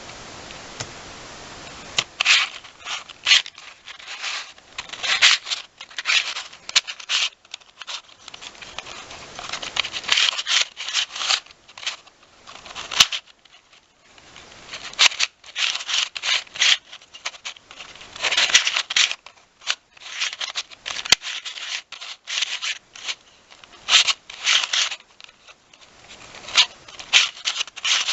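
Square-1 speed cube being turned rapidly during a timed solve: plastic pieces clicking and scraping as the layers are twisted and the puzzle is sliced, in quick uneven bursts with short pauses. The turning starts about two seconds in.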